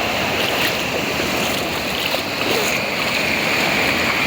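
Steady rush of sea surf and waves.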